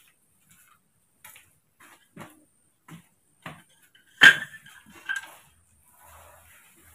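Bamboo and wood knocking during building work: a run of light knocks, one every half second or so, then one much louder sharp knock about four seconds in and a smaller one about a second later.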